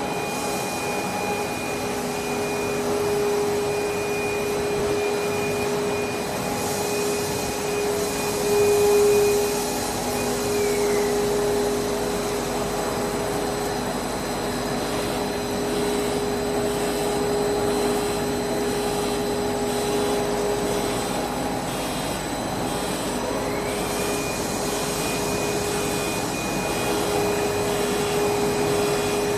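Five-layer cast stretch film line running at speed: a steady machine hum with several constant whines over a broad hiss. One high whine drops away about a third of the way in and glides back up near the end.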